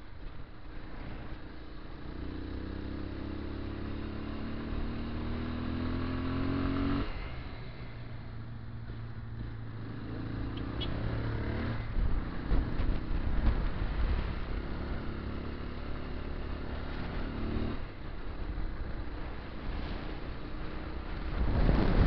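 Small motorcycle engine accelerating while riding: its pitch climbs, drops sharply at a gear change about seven seconds in, climbs again, holds fairly steady for a while, then falls off as the throttle eases near the end.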